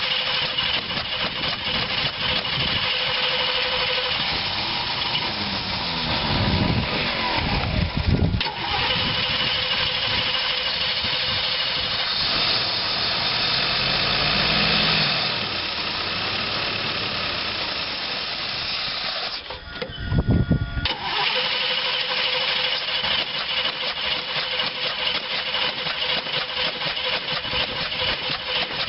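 Carbureted 366 cubic-inch big-block V8 cranking on its starter with a whining, pulsing rhythm. It catches a few times with short revs and then falls back to cranking, not staying running: the engine won't start without the choke.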